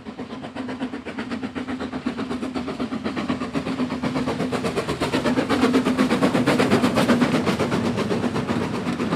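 BR Standard Class 4 4-6-0 steam locomotive 75069 passing close by at speed with a fast, even beat of exhaust and wheels and a steady low tone underneath. It grows louder as it nears.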